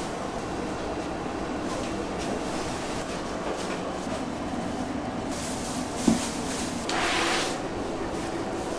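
Steady hum of kitchen machinery, with one sharp knock about six seconds in and a short hiss about a second later.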